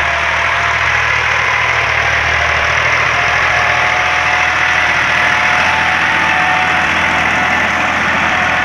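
Massey Ferguson 260 Turbo tractor's diesel engine running steadily under load as it pulls a tine cultivator through the soil.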